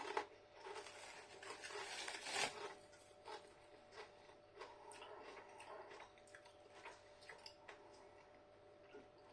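A man chewing hand-cooked potato crisps with faint, irregular crunching, loudest over the first three seconds and then trailing off into softer crunches.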